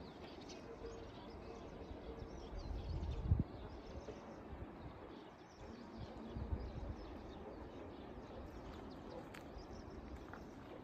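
Faint outdoor rural ambience with scattered small bird chirps, broken twice by low rumbling, the first and louder spell ending abruptly about three and a half seconds in.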